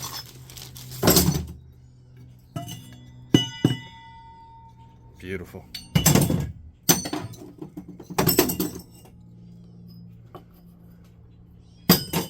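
Metal scrap pieces from copper light fixtures clanking and knocking as they are handled and dropped into a scrap bucket. There are several sharp knocks, and one bright metallic clink about three and a half seconds in rings for about half a second.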